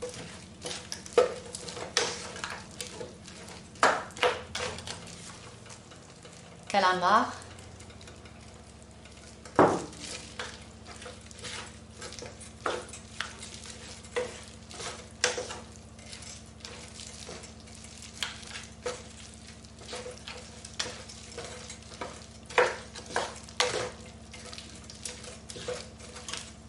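A cooking utensil stirring and scraping a pan of frying tomato, onion and shrimp, making irregular sharp scrapes and knocks over a light sizzle. One louder knock comes about ten seconds in.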